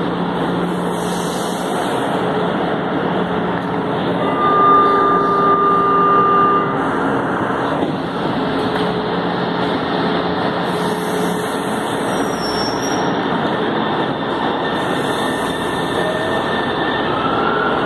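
São Paulo Metro electric train at a station platform with a steady rumble and hiss. A held tone sounds from about four to seven seconds in. Near the end a rising whine from the traction motors comes in as a train starts to pull away.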